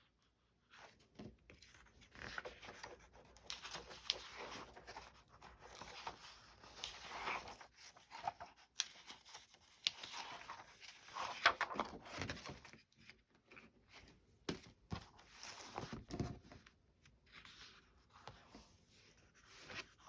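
Paper rustling and crinkling as old paper doll books are handled and their pages turned, in irregular bursts with light taps, starting about a second in.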